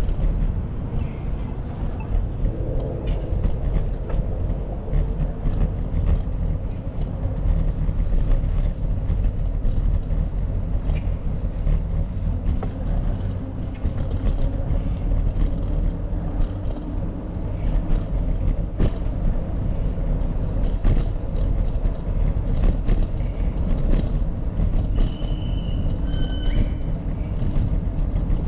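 Steady low rumble of wind buffeting the microphone and rolling noise from a moving bicycle, with scattered clicks and a couple of short high squeaks near the end.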